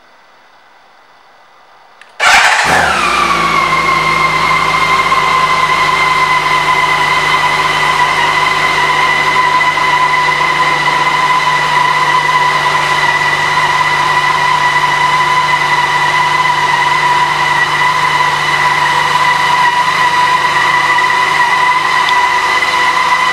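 BMW K 1600 B's inline-six engine starting about two seconds in. It flares briefly, falls in pitch and settles to a steady idle, with a steady whine over the exhaust note.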